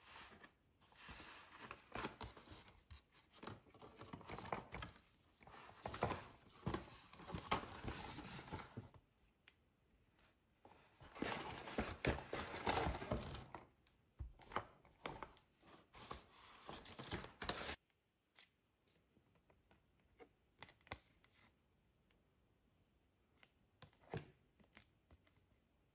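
Paper rustling and crinkling in bursts as hands rummage in a paper shopping bag and pull out boxed items. It stops abruptly about two-thirds of the way through, leaving only scattered light taps and clicks of cards and boxes being handled.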